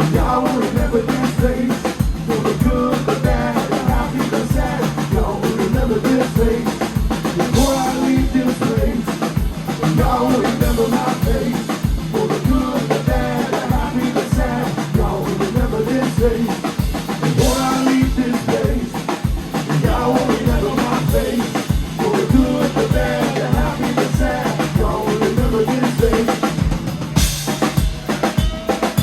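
Live band playing an instrumental passage without vocals: a drum kit keeps a steady kick-drum beat under sustained bass and guitar, with a cymbal crash about every ten seconds.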